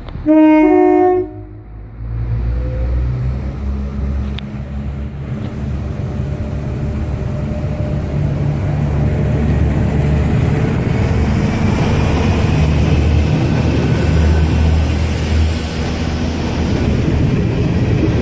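Diesel multiple-unit train sounds a two-note horn for about a second, then its engines run up as it pulls out of the station, the low rumble growing steadily louder. A hiss joins in past the middle.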